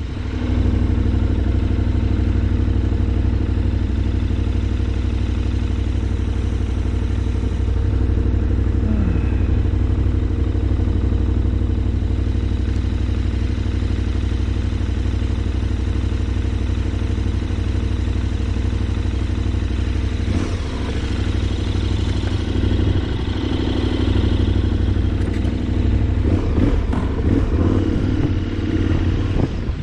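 Vehicle engine running steadily on the move, a constant low drone, with the sound shifting and growing rougher about twenty seconds in.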